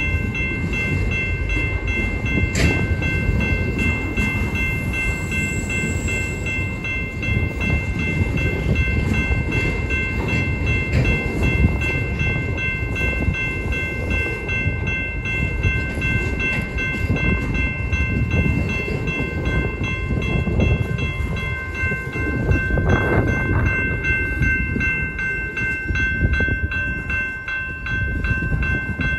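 Freight train of autorack cars rolling past: a continuous rumble and rattle of steel wheels on the rails, with a steady high ringing of several pitches held above it.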